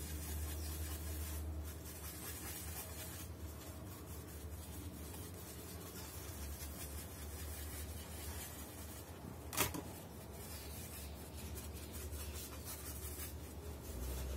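Paintbrush rubbing and stirring paint on a polystyrene foam palette: a faint, continuous scratchy rubbing over a steady low hum, with one brief sharp click about halfway through.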